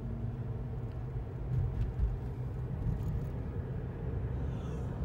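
A car running: a steady low rumble with no speech over it.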